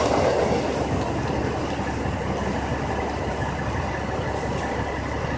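Freight train rolling past with a steady rumble and a low hum. The rattle of the cars is loudest at the start and eases off.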